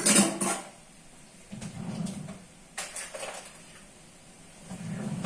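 A few short knocks and scrapes of kitchen things being handled, the loudest right at the start, then more around two, three and five seconds in.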